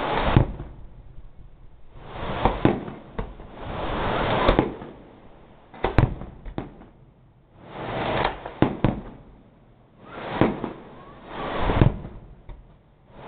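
Fireworks display: shells bursting in sharp bangs every couple of seconds, with a crackling hiss that swells and cuts off between the bangs.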